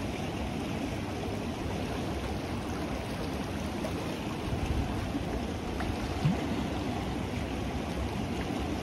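The Ganges running fast and turbulent: a steady rushing of water. A short rising chirp sounds about six seconds in.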